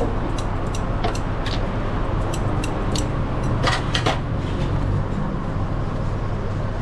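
Street background noise: a steady low rumble with scattered sharp clicks and clacks, two louder ones close together about four seconds in.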